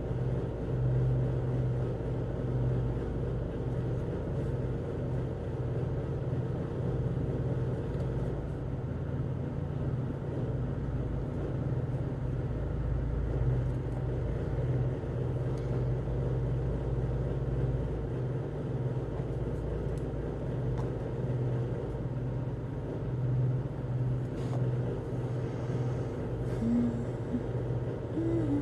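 Steady low hum with a rumble beneath it, a background drone like a fan, appliance or distant traffic.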